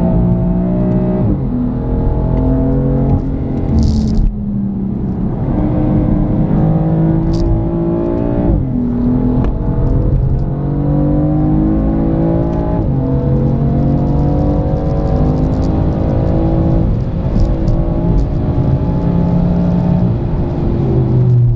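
BMW M4's twin-turbo straight-six engine under hard acceleration, heard from inside the cabin. Its pitch climbs and then drops back several times, with a short hiss about four seconds in.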